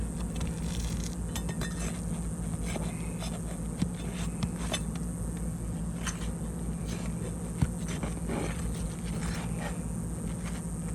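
Prying staples out of an old Tamko asphalt roof shingle: scattered scraping and rubbing against the shingle, with two sharp clicks, over a steady low rumble.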